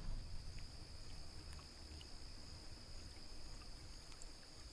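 Insects giving a steady, high-pitched drone, faint, over a low murmur of water and wind.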